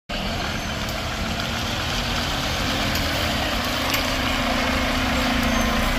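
Mack MRU front-loader garbage truck's diesel engine running as the truck drives slowly up and turns, growing slightly louder as it nears, over a steady hiss.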